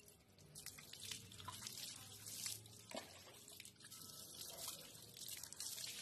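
Water being poured from a plastic scoop over a wet dog's coat, splashing and dripping onto concrete in faint, irregular splashes.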